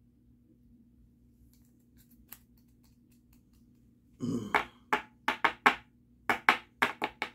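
A brief dull noise about four seconds in, then a quick run of about ten sharp taps and clicks in two clusters, from trading cards being handled and knocked together.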